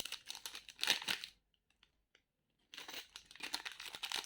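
Plastic jewellery packaging crinkling and rustling as it is handled and opened, in two bouts with a short pause between them.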